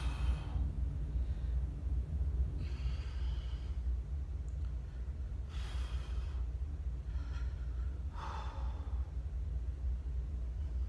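A man breathing hard through the strain of holding a plank, with slow, heavy breaths in and out about every two to three seconds. A steady low hum runs underneath.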